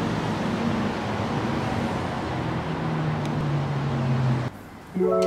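Road traffic noise: a steady rush with a low engine hum that drifts slightly in pitch, cutting off suddenly about four and a half seconds in. Soft piano music starts just before the end.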